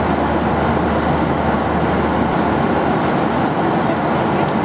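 Steady cabin noise of a Boeing 737-800 at cruise, a constant rush of airflow over the fuselage with the drone of its CFM56-7B engines, heard from a window seat. The deepest part of the hum drops away about halfway through.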